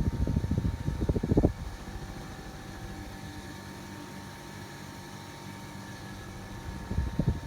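A 28-inch Sivicom mini ceiling fan with new blades running, giving a steady hum with faint tones. Its airflow buffets the microphone in low rumbling gusts for about the first second and a half and again near the end.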